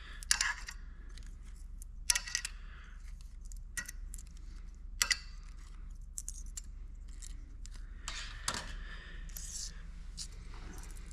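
Loose steel pieces of a 4L80E overrun sprag clutch clinking against each other and the bench as they are handled. There are a few sharp clinks, the loudest near the start, at about 2 and 5 seconds, and another about 8 seconds in, with lighter taps between.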